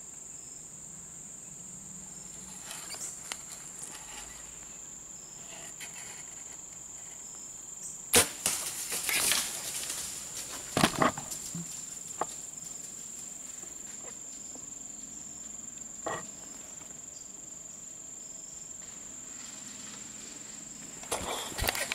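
Steady high trill of crickets and other insects. About eight seconds in comes a single sharp snap, a compound bow being shot, followed by a couple of seconds of rustling in leaves. Further sharp clicks and knocks follow shortly after and again near the end.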